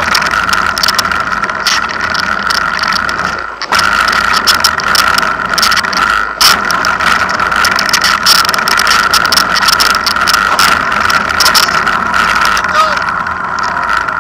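A car engine running steadily, with people talking and scattered short clicks.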